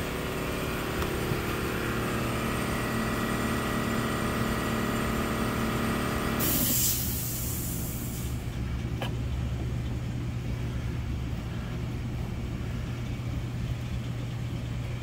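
Steady machine hum with whining tones. About six and a half seconds in, the whine stops with a short hiss, leaving a low steady hum, and a single click follows a couple of seconds later.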